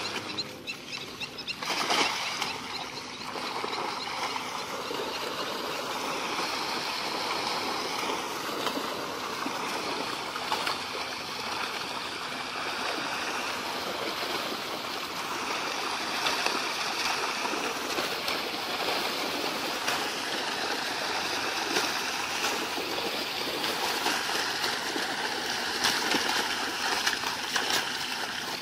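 Cast net splashing into shallow water about two seconds in, then a steady wash of splashing water as the net is dragged through the shallows, with fish thrashing in the net near the end.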